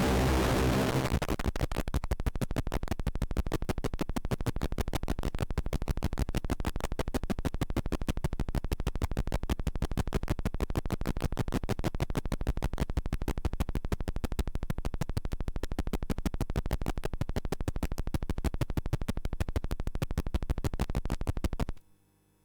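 Harsh electronic noise music. A dense wash of noise gives way about a second in to a fast, even stream of harsh clicking pulses, roughly ten a second, which cuts off suddenly near the end.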